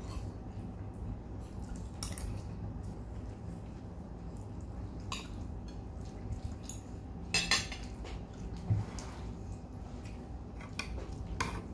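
Cutlery clinking now and then against dinner plates as people eat, a few scattered clinks with the loudest cluster a little past the middle, over a faint steady hum.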